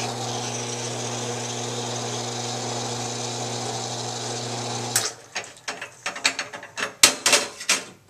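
Bunn ES-1A heat-exchanger espresso machine running a five-second group purge: a steady pump hum and hot water rushing from the group head, flushing overheated water out of the heat exchanger. It cuts off suddenly, followed by a run of sharp metal clicks and knocks as the tamped filter basket and portafilter are handled.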